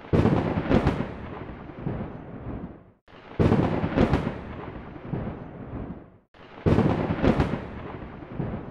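A crash-and-rumble sound effect plays three times, about three seconds apart. Each time there are two sharp cracks under a second apart, then a rolling rumble that dies away.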